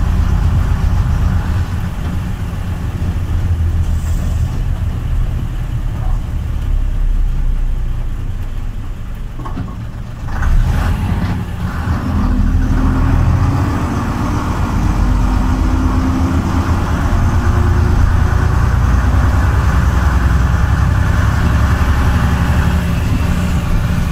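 Engine of the vintage vehicle KNG 374, heard from the cab while driving. It eases off about ten seconds in, then pulls away again, rising steadily in pitch as it gathers speed.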